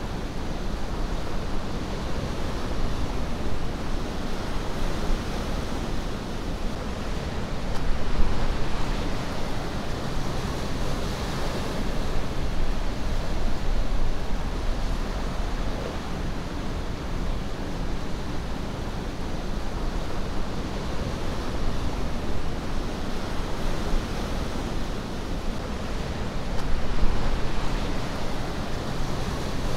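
Ocean surf breaking and washing in, a steady rush of noise that swells louder about eight seconds in and again near the end.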